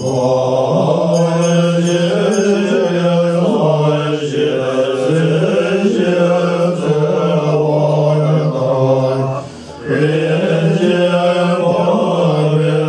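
Tibetan Buddhist monks chanting a prayer in unison on a low, steady pitch, with a brief break for breath about nine and a half seconds in.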